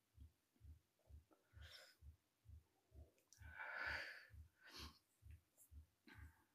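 Near silence: one faint breath about three and a half seconds in, over a faint low pulse about twice a second and a few faint ticks.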